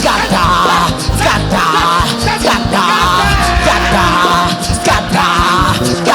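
Loud church music with voices singing or shouting over it in short phrases about once a second.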